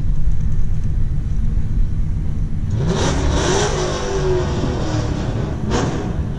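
A car engine revs up sharply about three seconds in, then eases back down over the next two seconds, over a steady low rumble. A sharp click comes near the end.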